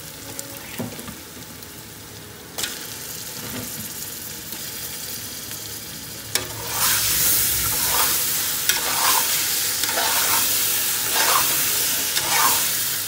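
Raw mutton pieces sizzling in hot ghee and fried onions in a metal pot. The sizzle grows much louder about halfway through as a spatula starts stirring, scraping the pot about once a second.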